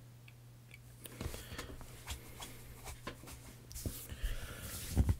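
Rustling and soft clicks of a person shifting and moving his arms close to the microphone, clothing and hands brushing, starting about a second in and busiest near the end. A steady low hum runs underneath.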